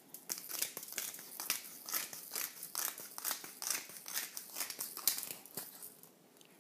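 Pepper mill grinding peppercorns: a fast, irregular run of crisp crunching clicks that dies away shortly before the end.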